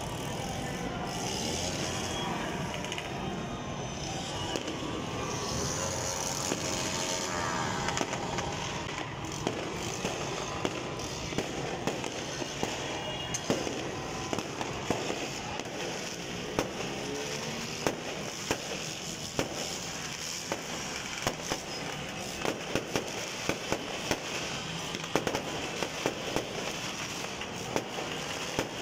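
Fireworks going off: many sharp pops and crackles over a steady background din. The bangs come thicker in the second half.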